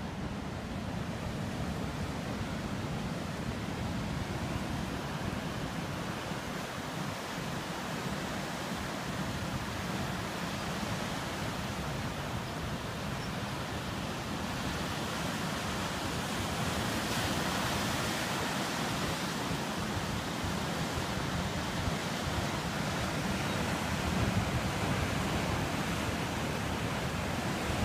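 Pacific Ocean surf breaking and washing against coastal rocks, a steady rushing that swells louder in the second half, with wind on the microphone.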